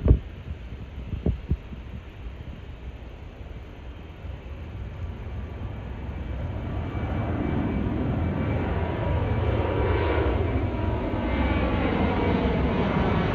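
Airplane taking off, its engine noise building from a low rumble to a loud, steady roar over the second half. A few brief knocks sound in the first couple of seconds.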